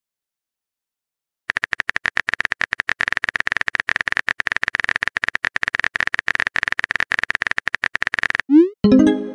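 Rapid, steady clicking of a text-messaging app's keyboard typing sound effect. It starts about a second and a half in and stops near the end, followed by a short rising pop and chime that signal the message has been sent.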